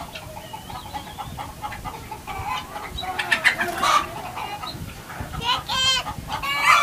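Chickens clucking, with louder calls near the end.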